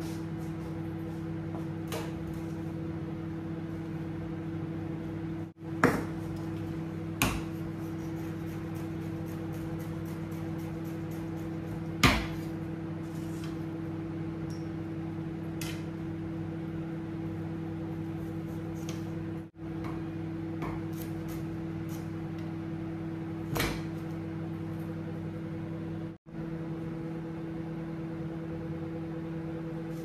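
Kenwood microwave oven running with a steady hum while cooking fish, with a few sharp clicks over it, the loudest about six and twelve seconds in.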